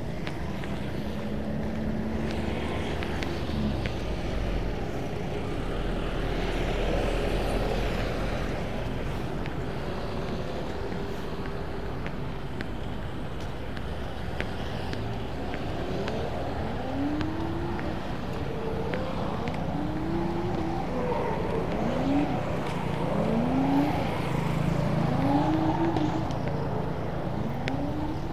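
Road traffic running steadily. In the second half an engine revs up again and again, its pitch rising each time, about once every second and a half.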